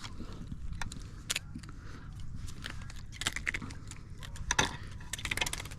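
Irregular clicks and light rattles in short clusters: rod-and-reel handling noise while a hooked fish is being fought.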